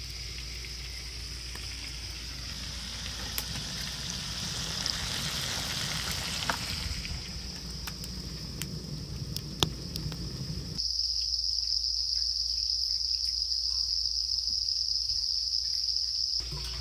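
Fish frying in hot pork lard in a pan, a steady sizzle with scattered pops, under a steady high-pitched chirring of insects. About eleven seconds in, the sizzle cuts off suddenly and only the insect chirring remains.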